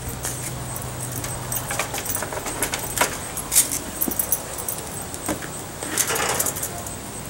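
Scattered metallic clinks and clatters as the metal parts of a steel-drum grill are handled, a round metal plate lifted out of the drum, with a short run of rattling about six seconds in.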